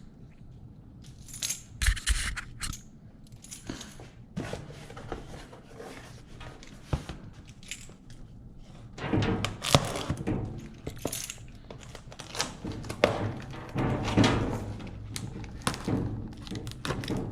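Irregular thunks, clicks and rustles of a parcel and its packaging being handled and opened, getting louder and busier from about nine seconds in.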